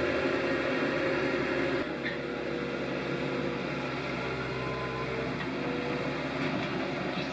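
Skid-steer loader engine running steadily, its pitch shifting slightly around the middle as it is worked.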